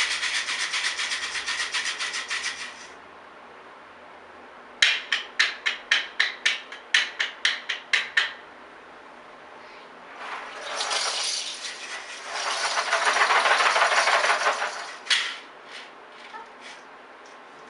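Homemade tin-can percussion instruments played one after another. First comes a fast steady shaking for about three seconds. Then about a dozen separate shaken strokes, roughly four a second, and finally a longer rasping, scraping passage.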